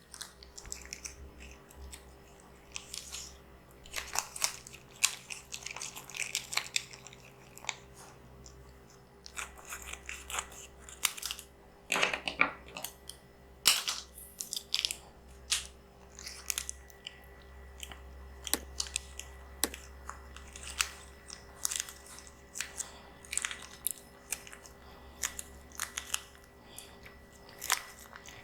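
Close-miked eating of spicy instant noodles: wet chewing and lip smacks, with many sharp irregular mouth clicks.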